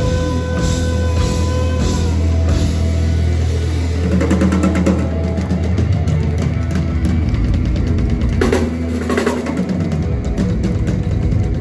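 Live prog-rock band playing loud, with electric guitar, a heavy bass low end and a drum kit. Held chords give way to busy, rapid drumming about four seconds in.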